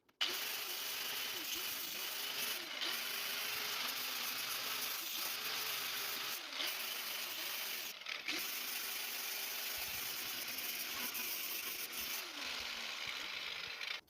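Electric power tool running steadily, its motor pitch dipping and recovering over and over as it loads and unloads. It starts suddenly just after the beginning and stops abruptly at the end.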